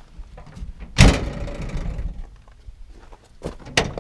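Replacement pickup tailgate on a 2006 Ford F-250 slammed shut about a second in, a loud clang that rings on briefly, followed near the end by two sharp clicks of the tailgate latch and handle.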